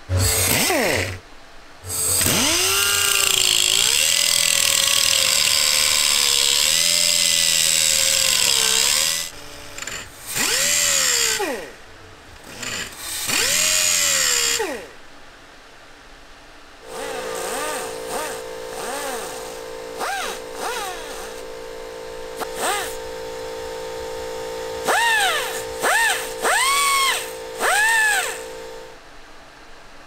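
Handheld electric power tool, drill-type, run in trigger bursts with its whine rising and falling in pitch as the speed changes: one long run of about seven seconds, then several short bursts. In the second half a steadier, lower machine hum runs under four more short bursts.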